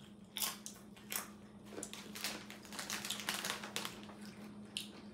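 Doritos tortilla chip being crunched while chewing: a run of short, crisp crackles, densest from about two to four seconds in, over a faint steady hum.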